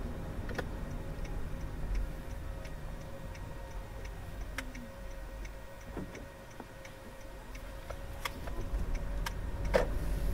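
Car's turn-signal indicator ticking, about three clicks a second, over low engine and road noise that drops in the middle as the car slows and picks up again near the end.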